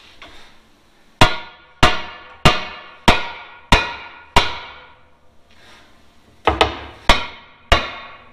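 Hammer blows driving a 5/16-inch steel frame liner into a truck frame rail: a run of loud, ringing metal strikes about one every 0.6 seconds, a pause of about two seconds, then four more.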